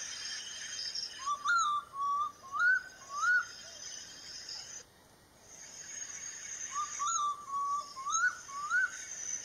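Oriental bay owl calling: two series of about four short whistled notes, each note rising at the end, over a steady high insect drone.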